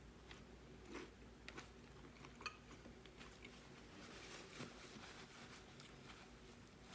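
Faint eating sounds: quiet chewing with a few light clicks of cutlery against a dish.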